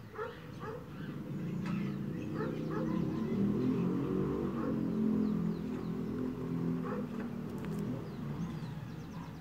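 Stone mano rubbing and scraping toasted sesame seeds on a volcanic-stone metate, over small birds chirping. A low, pitched drone swells from about a second in, peaks midway and fades toward the end.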